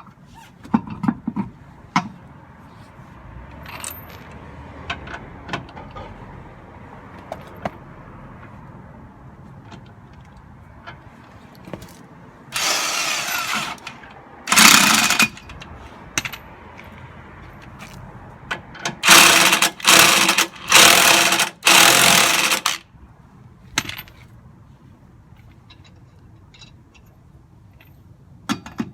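Power tool, an impact wrench as the wheel goes back on, running in six short bursts of one to two seconds each, clustered from a little before halfway to about three-quarters through. Scattered clicks and knocks of hand tools lie between.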